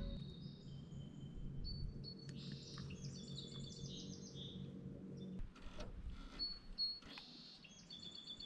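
Small birds chirping and trilling, with several overlapping calls, over a low steady hum that stops about five seconds in.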